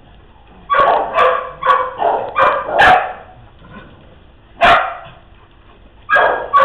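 Dogs play-barking: a quick run of about six sharp barks in the first three seconds, then single barks a little before five seconds in and again just after six.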